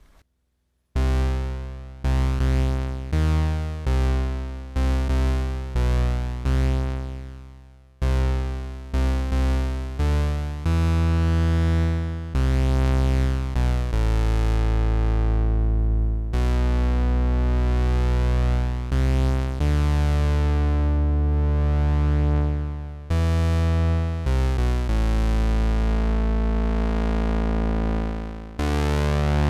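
IK Multimedia UNO Synth, a monophonic analog synthesizer, playing a low bass line one note at a time. It starts with short notes that die away quickly, then moves to longer held notes whose brightness swells and falls as the filter opens and closes.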